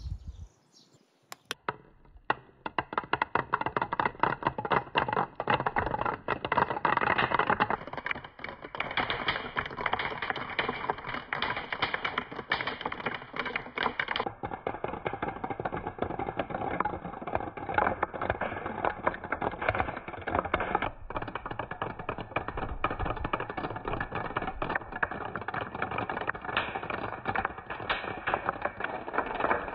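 Many small balls clattering down a wooden marble-run staircase: a dense, rapid stream of taps and clicks. It starts about two seconds in and goes on without a break.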